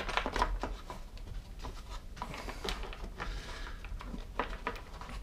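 Irregular light clicks and taps of hands handling a Homelite chainsaw's plastic housing, with a screwdriver.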